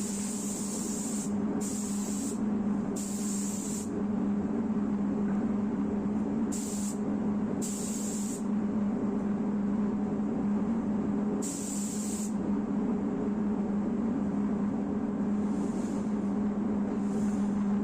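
Air spray gun hissing in short bursts of half a second to a second each, about six spray passes with pauses between, during primer application on a car door. A steady low hum runs underneath.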